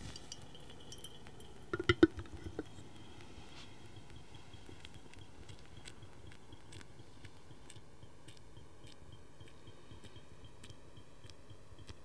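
V60 dripper set down onto a glass coffee server with a short cluster of clinks about two seconds in, then faint, irregular ticks of coffee dripping from the dripper into the server.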